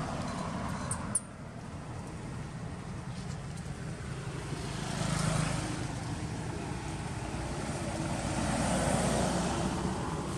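Road traffic: the rushing noise of vehicles passing on the road, swelling about five seconds in and again near the end.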